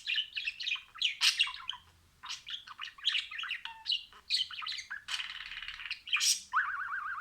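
Budgerigars chirping and warbling: quick chattering phrases of varied chirps with short gaps, and a fast rippling trill near the end.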